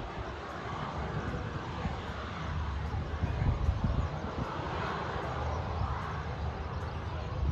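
Boeing 737 jet engines heard from outside, a steady rushing roar with a low rumble underneath that swells slightly partway through.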